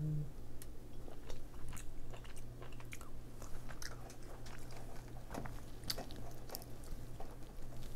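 Close-miked chewing and wet lip-smacking of king crab meat, with irregular sharp mouth clicks and finger-licking sounds. A low steady hum runs underneath.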